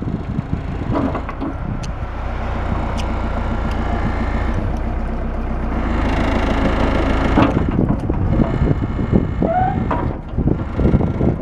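Kobelco 80CS excavator's diesel engine running while the hydraulics swing the arm and curl the bucket. The engine note swells under load from about two seconds in and eases off after about seven seconds, with a few knocks near the end.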